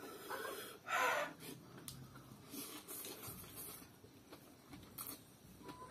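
Short hissing breaths and mouth sounds of a person eating 3x-spicy Korean instant noodles, the loudest about a second in.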